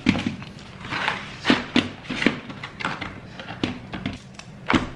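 Irregular knocks and clatter of metal baking trays on a wooden table, with the handling of sausage packaging in between, about eight sharp knocks in all.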